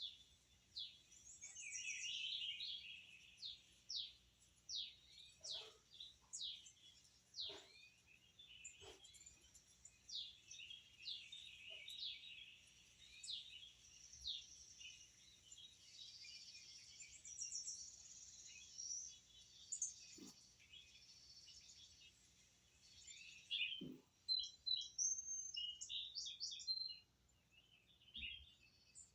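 Birds chirping and calling, faintly: many short high chirps and quick falling notes that overlap, with a burst of rapid chirps near the end.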